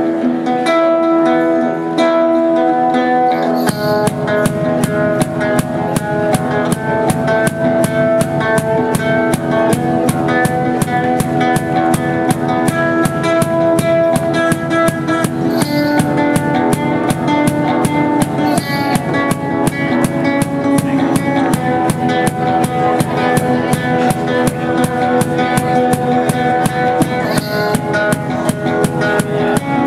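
One-man street band music: acoustic guitar playing alone, then a steady fast percussion beat comes in under it about four seconds in. A few brief high ringing notes sound later.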